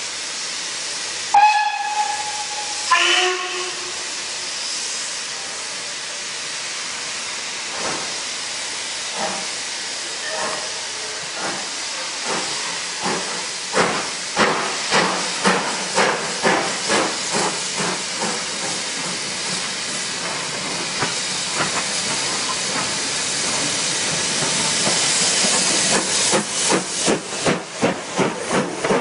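Two coupled steam locomotives: a steady hiss of steam, then two short whistle blasts, a higher one and then a lower one. Exhaust beats follow, starting slowly, settling to about two a second and growing louder and sharper near the end as a locomotive comes past close by.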